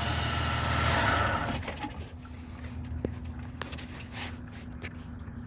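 2004 Jeep Grand Cherokee WJ engine idling, then shutting off about a second and a half in. A few faint clicks follow.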